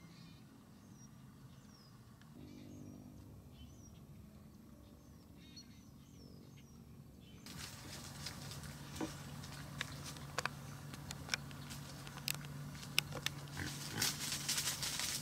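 Wild hogs grunting and moving through brush, with many sharp snaps and crackles. It turns suddenly louder about halfway through. Faint bird chirps come before that.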